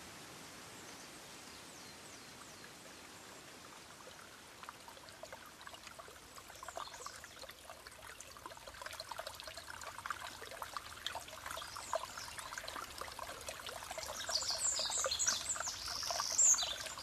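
Water trickling, faint at first and growing louder as it fades in over a steady hiss, with a cluster of short high chirps near the end.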